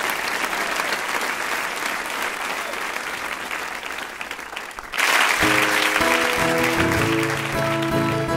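Audience applause from a live music recording, slowly fading, cut off sharply about five seconds in. Right after, an acoustic guitar starts picking out the opening notes of the next song.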